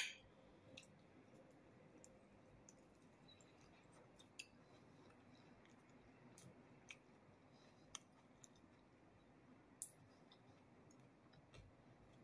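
Near silence, broken by a few faint, sharp clicks from a person eating with wooden chopsticks. The clearest click comes about ten seconds in.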